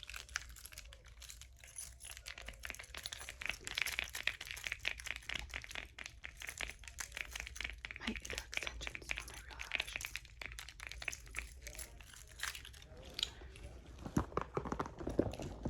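Close-miked fingernail tapping and scratching on a leather handbag, with crinkling: a dense run of rapid, sharp clicks and a few louder taps near the end.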